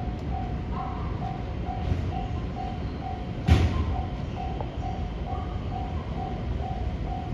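Japanese level-crossing warning bell ringing in a steady beat of about two strikes a second, over the steady rumble of a freight train hauled by an EF65 electric locomotive rolling past. One sharp clank about three and a half seconds in.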